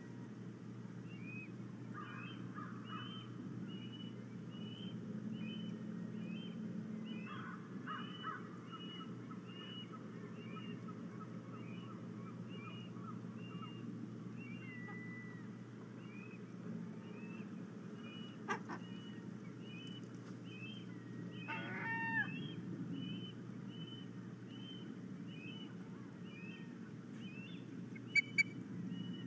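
Osprey giving a long, regular series of short, high whistled calls, about two a second, over a low steady background noise. A faster chattering run comes early on, a louder, harsher call about two-thirds of the way through, and a few sharp clicks near the end.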